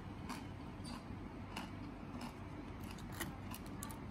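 Faint, irregular light clicks and taps of handling, a dozen or so scattered through, over a low steady hum.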